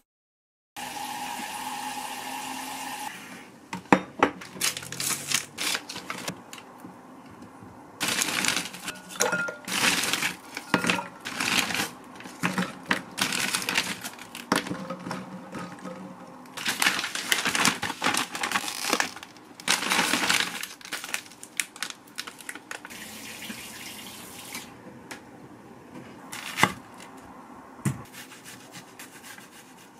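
Kitchen food-prep handling sounds: bowls, a tray, a colander and a wooden cutting board being moved and set down on the counter, with scattered knocks and clinks and several stretches of rustling, rushing noise a second or two long.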